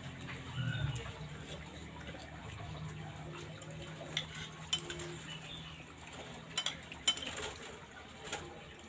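Metal spoons clinking and scraping against plates during a meal, with a few sharp clinks in the second half, over a low steady hum.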